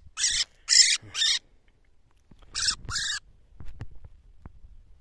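A captured thrush held in the hand giving harsh distress squawks: three short screeches in quick succession, then two more about two and a half seconds in, followed by a few faint ticks.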